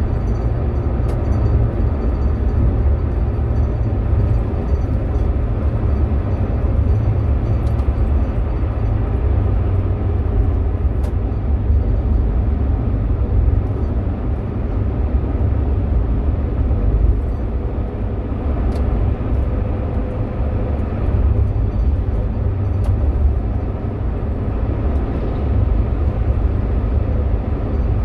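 Steady low rumble inside a car's cabin cruising at highway speed: tyre, road and engine noise.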